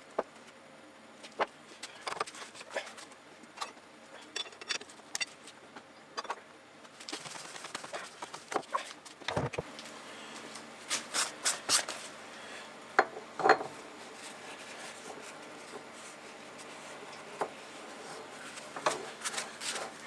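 Irregular metal clinks and knocks from lathe chucks being handled: a chuck is unscrewed off the Myford lathe's threaded spindle nose and set down, then another fitting is spun on by hand. The knocks come thicker and louder in the second half.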